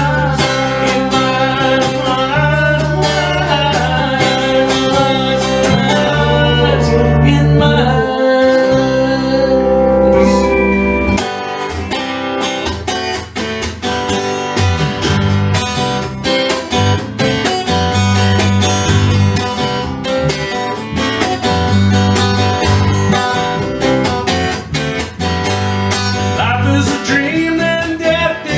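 Music: an instrumental passage of a song led by guitar over a steady bass line, with a change in the arrangement about eleven seconds in.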